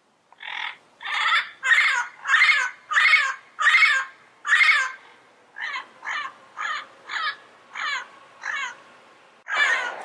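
Yellow-headed amazon parrot calling: a run of about seven loud calls roughly twice a second, then half a dozen shorter, softer ones, then a loud burst of calls near the end.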